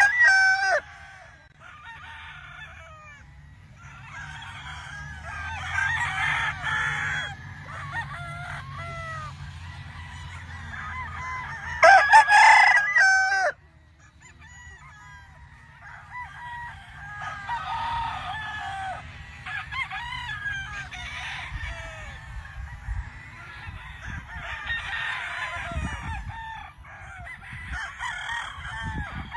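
Gamefowl roosters crowing one after another and overlapping, near and far. A close crow from a Lacy Roundhead rooster sounds at the very start. Another loud crow comes about twelve seconds in and lasts about two seconds.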